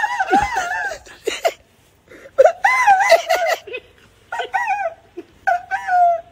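A man wailing in a high, exaggerated sobbing cry: about four long, wavering cries with short breaks, the last one held on a steady pitch.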